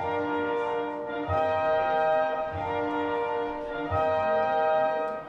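Orchestral music led by brass, playing held chords that change about every second and a half, with a low thud at each change.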